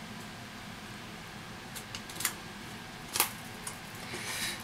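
A few short, sharp clicks over a steady background hum, with a hiss rising near the end.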